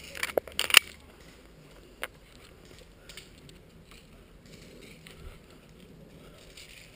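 A quick run of sharp cracks from airsoft guns firing in the first second, one more shot about two seconds in, then faint rustling of movement.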